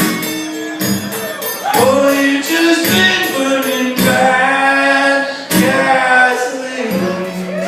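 Live country-blues song: a male voice singing over the band's or guitar's accompaniment, with sharp strummed or struck accents.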